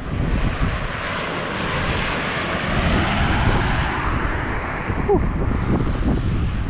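A vehicle running, a steady rumble with a rushing noise that swells about two to three seconds in.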